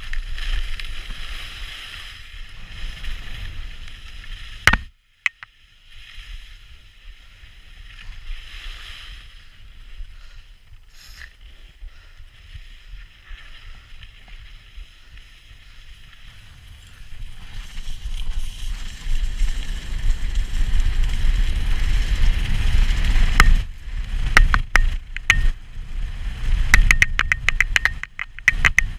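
Wind rushing over the microphone and skis scraping over packed snow on a fast downhill ski run, with a sharp knock about five seconds in. The rush grows louder in the second half, and a quick run of sharp clicks comes near the end.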